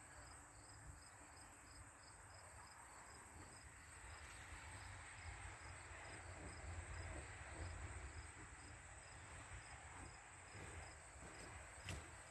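A faint night insect chorus of crickets: a steady high trill with a second chirp pulsing about three times a second. A low rumble swells and fades in the middle, and a few sharp clicks come near the end.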